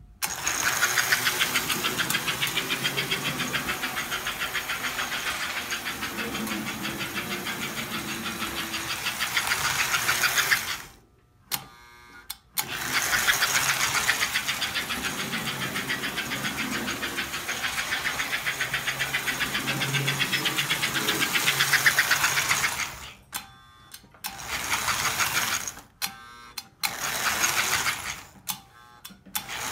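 American Flyer 312AC Pacific toy steam locomotive running on S-gauge track: its electric motor and gears whir with a fast, even clatter. It stops briefly about eleven seconds in, then starts and stops three more times near the end.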